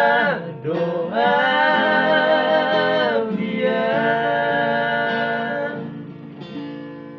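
Men singing together to a strummed acoustic guitar, holding long notes that fade away toward the end.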